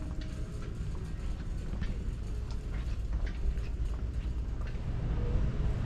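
Footsteps on a hard store floor, clicking about twice a second, over the low rumble of a shopping cart rolling.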